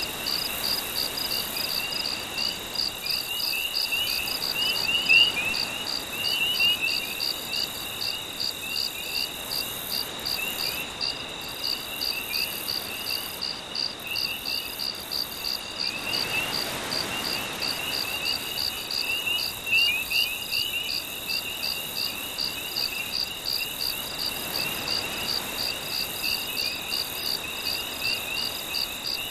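Night insect chorus of crickets chirping in a fast, even pulse, with a steady high trill and a ripple of quicker chirps beneath. Beneath the chorus, a soft wash of small waves swells twice.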